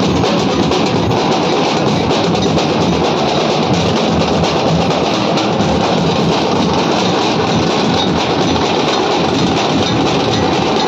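Nashik dhol band: many large barrel dhols beaten with sticks together in a loud, unbroken wall of drumming.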